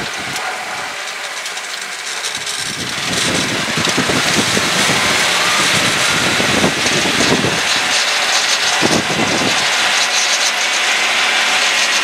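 Tomcar off-road vehicle driving on a paved road, heard from on board: steady engine and road noise that grows louder about three seconds in and then holds.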